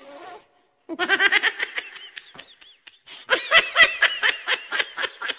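A person laughing in two bouts of rapid 'ha-ha-ha' pulses, the second bout louder.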